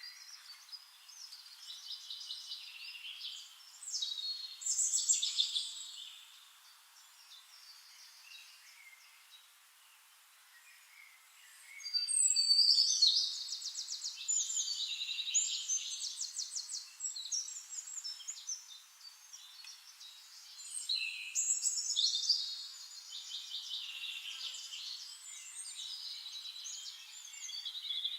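Songbirds singing in repeated bursts of high chirps and fast trills. There is a quieter lull before the loudest stretch about halfway in, and singing picks up again later.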